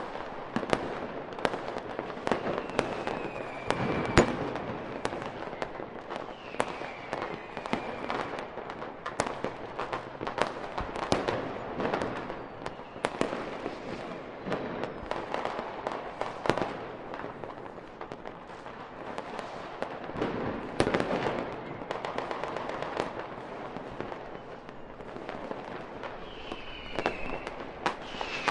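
Fireworks display: a rapid run of bangs and crackles, with a few short whistles gliding in pitch. The loudest bang comes about four seconds in.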